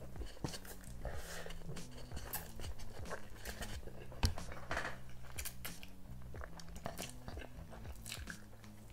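Close-up slurping and chewing of Samyang Buldak hot chicken fire noodles eaten with chopsticks: wet slurps and mouth clicks, with one sharper click a little over four seconds in.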